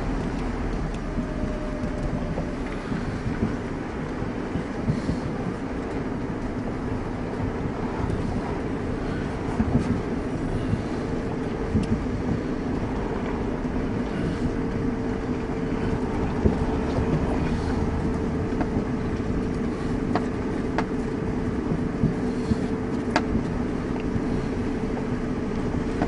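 Steady engine and tyre noise of a vehicle driving slowly over a rough, wet track, with a steady hum and a few light knocks in the second half.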